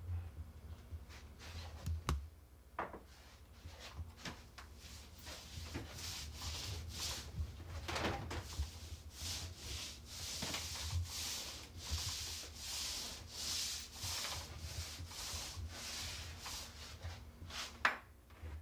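Glue being spread over a countertop with an applicator: repeated rubbing, swishing strokes, about one a second, with a sharper knock near the end.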